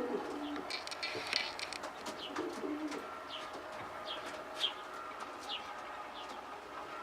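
Pigeons in a loft: one short low coo about two and a half seconds in, over a run of brief high, falling chirps, with a short rustle about a second in.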